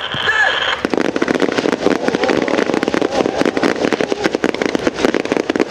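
Rapid, overlapping gunfire from several rifles on a firing range: a dense, continuous crackle of sharp shots, starting about a second in.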